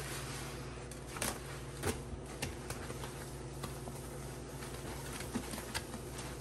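Sponge pressed and worked through thick wet grout paste in a plastic tub: soft squelching with a scattering of sharp sticky pops and smacks, over a steady low hum.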